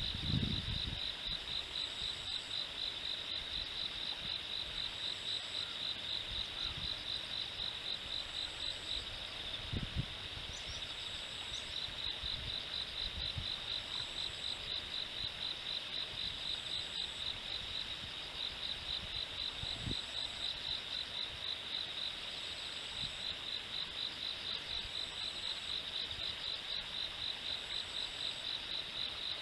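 Insects singing: a steady high-pitched pulsing trill, with a short, higher chirp repeating every second or two.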